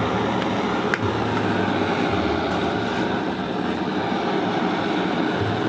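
Steady rushing noise of a flame heating a rusted, seized washing-machine agitator to loosen it for removal.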